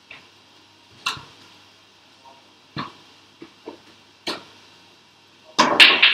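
Pool cue and balls clicking: a few short, sharp knocks spaced a second or so apart, one of them the cue tip striking the cue ball about four seconds in. A loud burst of noise starts near the end.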